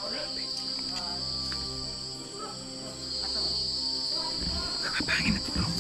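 Night insects chirring in a steady, high, unbroken drone, with a few short rustling noises near the end.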